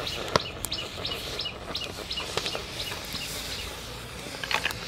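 A bird calling a rapid run of short, high chirps, about four a second, that stops after about three seconds. A metal spoon clinks sharply once against a snail shell about half a second in, and there is a brief flurry of clicks near the end.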